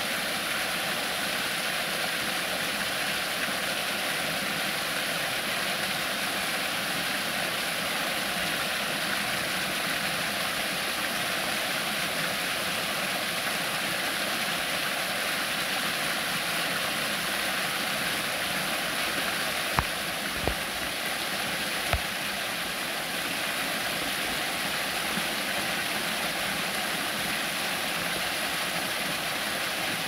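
Small waterfall cascading down stepped rocks: a steady, even rush of falling water. Three brief thumps stand out over it about twenty seconds in.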